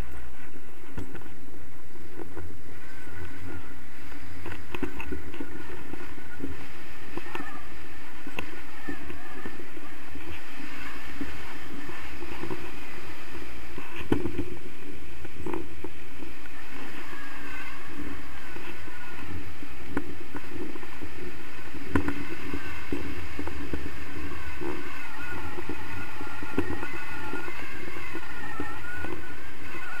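Steady wind rushing over the action-camera microphone during a tandem paraglider launch and flight, a heavy low buffeting rumble with a faint wavering whistle above it.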